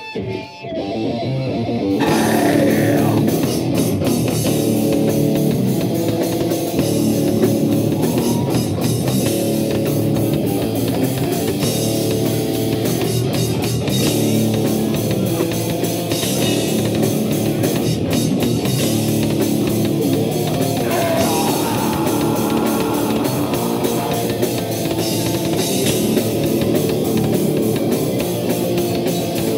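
Loud heavy rock music played on drum kit, guitar and electric bass. It starts in full about two seconds in, after a brief lull, and runs steady from there.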